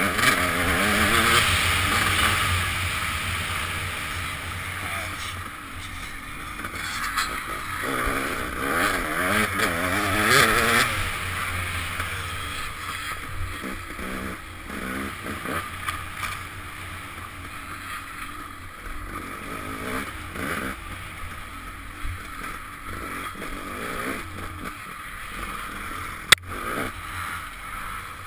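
Dirt bike engine under a rider, revving up and down as the throttle opens and closes along the trail, with rushing noise on the helmet microphone. It is loudest in the first few seconds and again around ten seconds in. A single sharp tick comes near the end.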